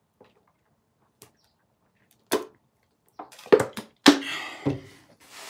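Someone drinking soda from a plastic bottle: gulps and mouth clicks starting about two seconds in, then a louder breathy sound about four seconds in.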